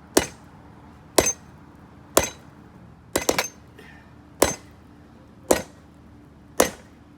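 Blacksmith's hammer striking a sword blade on an anvil to flatten it, about one blow a second with a quick run of three blows near the middle, each with a short metallic ring.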